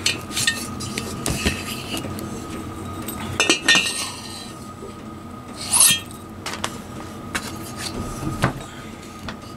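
Metal parts being handled in a Triumph T140 cylinder barrel: light clinks and taps of a piston ring against the bore and barrel, with two louder scrapes about three and a half and six seconds in.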